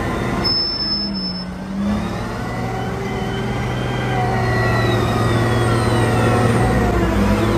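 Caterpillar 990 wheel loader's diesel engine running under load, its pitch rising and falling as the machine dumps and backs toward the stockpile.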